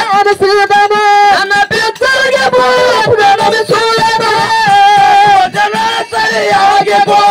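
Male folk singer singing a Kannada dollu song (dollina pada) into a microphone, with long held notes that waver in pitch, and a drum beating underneath.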